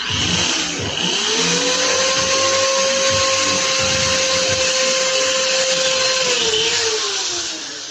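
Electric drill running: its motor whine climbs in pitch about a second in, holds steady, then drops as the drill slows down near the end.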